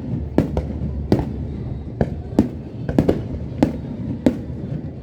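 Aerial fireworks bursting in quick, irregular succession, about two sharp bangs a second, over a low rumble.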